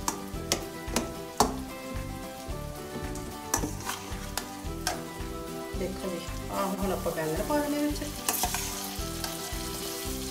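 Slotted steel spoon clinking and scraping against a steel bowl as boiled eggplant is scooped out, with a steady sizzle of masala frying in oil. About eight seconds in the sizzle grows as the eggplant goes into the hot pan.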